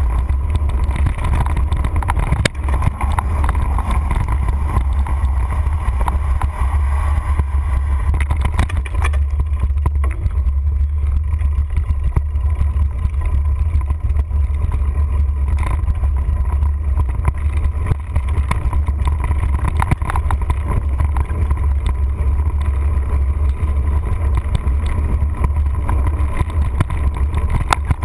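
A mountain bike riding a dirt trail, heard from a handlebar-mounted camera: steady wind rumble on the microphone, with the bike and camera mount rattling and knocking over bumps.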